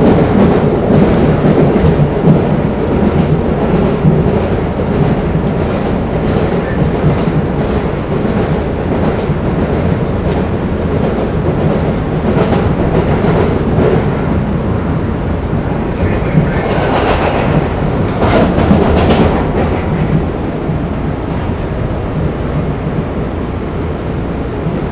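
MBTA Blue Line subway car running along the track, with a steady rumble and wheels clicking over rail joints. A louder, higher-pitched stretch of wheel and running noise comes about two-thirds of the way through.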